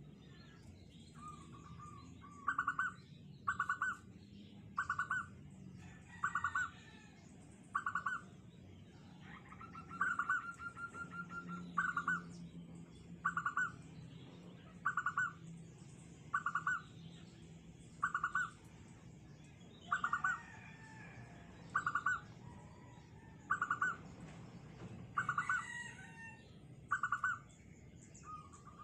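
Zebra dove (perkutut) singing, a short rolling coo repeated about every one and a half seconds in a small, tight voice, with one longer drawn-out phrase about ten seconds in. Faint high chirps of other birds sound behind it.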